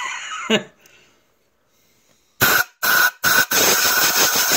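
Compressed-air blow gun blasting into the oil and bolt passages of a Subaru EJ25 engine block to clear out machining chips. It gives three short hissing blasts, then one long steady blast with a whistling edge.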